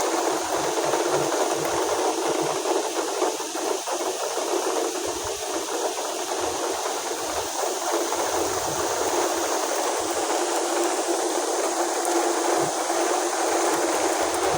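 Steady rainfall: a continuous, even hiss of rain.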